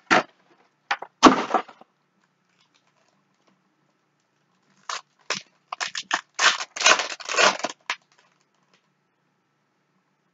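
Foil trading-card pack wrapper crinkling and tearing open in a run of short rustles, densest about five to eight seconds in, after a few sharper rustles near the start.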